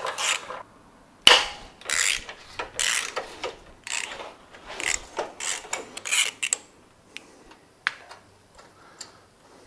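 Hand socket ratchet wrench being worked on a bolt, a run of rasping ratcheting strokes about two a second, then a few lighter clicks near the end.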